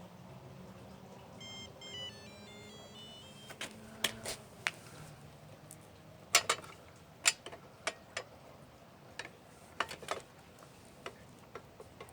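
A quick run of short electronic beeps at stepped pitches, then a series of irregular sharp clicks and knocks over a faint low hum.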